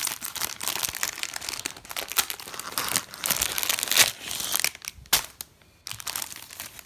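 Packaging crinkling and crackling as a sock is unwrapped by hand. The crackling is dense for about five seconds, then dies down to a few last crinkles.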